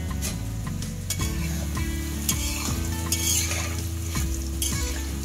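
Rice-flour kurkure sticks deep-frying in hot oil in a metal kadai, sizzling steadily, while a metal spoon stirs them, scraping against the pan several times.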